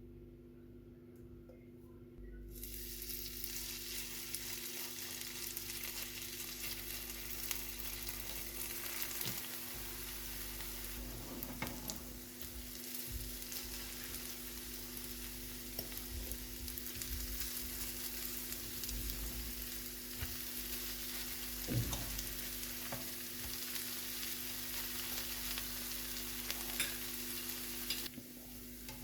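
Cabbage and potato pancakes frying in oil in a pan: a steady sizzle with scattered pops, starting about two seconds in and cutting off suddenly near the end, over a low steady hum.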